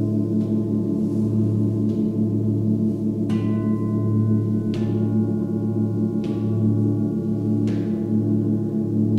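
Seven-metal Tibetan singing bowls ringing together in a deep, pulsing drone. A bowl is struck about every second and a half, and each strike adds brighter, higher ringing tones over the low hum.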